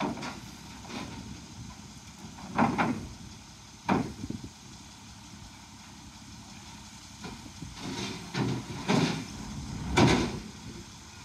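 Several sudden clunks and knocks, the loudest about ten seconds in, over a low steady engine running in the background.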